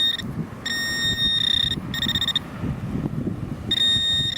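Garrett AT Pro metal detector sounding its target tone: a steady high beep repeated four times as the coil sweeps back and forth over a buried metal target, the second beep the longest. A low rustle sits underneath.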